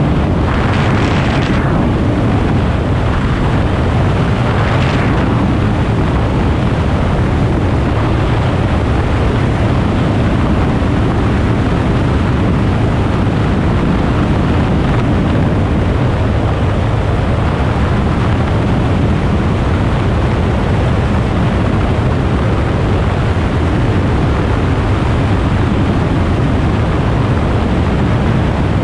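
Light aircraft's engine and propeller droning steadily on approach, heard through wind rushing over an externally mounted camera, with two short gusts of wind hiss about a second and five seconds in.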